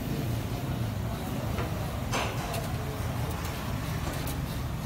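Steady low rumble of a busy street, with a sharp click a little over two seconds in.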